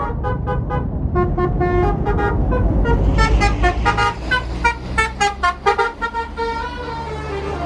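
Tourist bus's basuri telolet horn playing a quick melody of stepped notes, then a run of short, rapid blasts, over the bus's engine rumble. The horn stops about six seconds in while the engine carries on.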